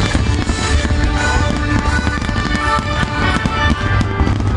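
Aerial firework shells bursting in rapid, overlapping succession with a continuous deep rumble, mixed with music playing under the display.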